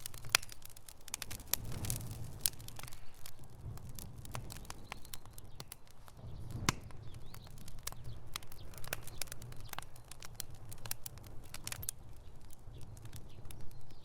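Wood fire burning in a fireplace: frequent sharp crackles and pops over a low, steady rumble of flames, with a few louder pops, one about two seconds in and another near the middle.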